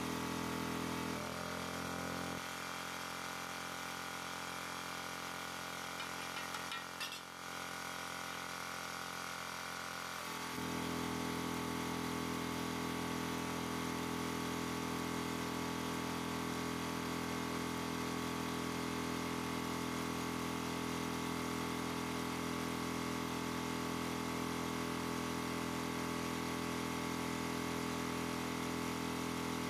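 A steady machine hum made of several fixed tones. About a second in its lower part drops away, and it comes back fully about ten seconds in.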